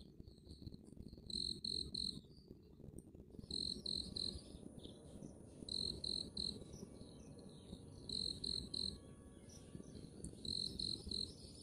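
A cricket chirping in short groups of three pulses, one group about every two seconds. From a few seconds in, a faint steady high buzz, likely another insect, runs behind it.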